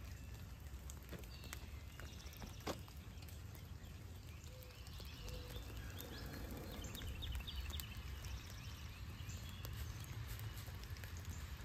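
A few sharp snaps of thin pine twigs over a smouldering, smoking fire of damp leaves in a metal can, against a steady low rumble. Faint chirps come in around the middle.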